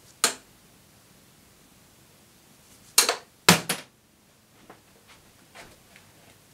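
Steel-tip darts striking a bristle dartboard with sharp knocks: one about a quarter second in, then a quick cluster of three or four, the loudest, about three seconds in. Fainter clicks follow as the darts are pulled out of the board by hand.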